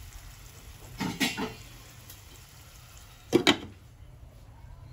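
A glass lid is set down on a nonstick frying pan, landing with a sharp clink about three and a half seconds in; a few softer knocks come about a second in.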